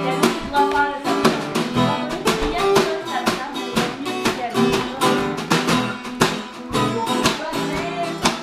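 Blues jam on an acoustic guitar, with a snare drum struck with sticks in a steady beat of sharp hits over the guitar notes.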